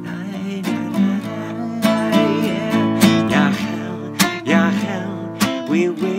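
Music: an acoustic guitar strumming chords, with sharp strums every second or so over ringing chords.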